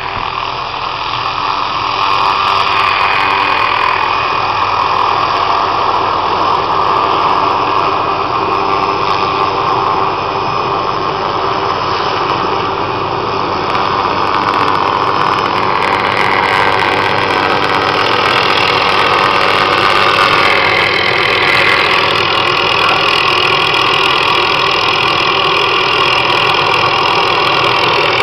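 Helicopter engine and rotor running steadily, with the pitch rising about two-thirds of the way through as it powers up for takeoff.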